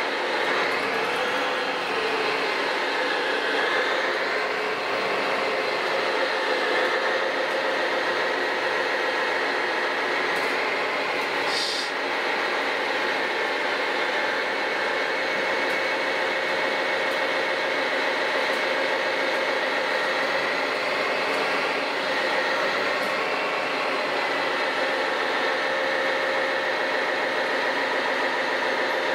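Radio-controlled model crawler dozer towing a model dump truck on a chain: a steady mechanical whine from its drive motors and gearing that wavers up and down in pitch. A brief hiss comes near the middle.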